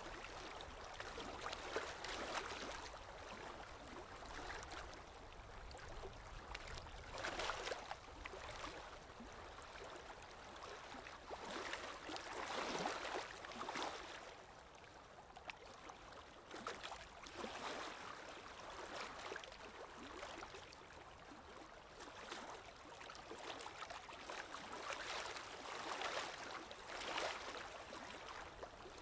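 Running water of a forest stream, a steady rush that rises and falls in swells every few seconds.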